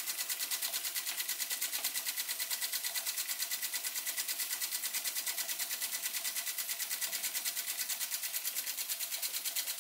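Weeden No. 14 toy steam engine running smoothly at speed, its exhaust giving a fast, even chuffing beat with a hiss of steam.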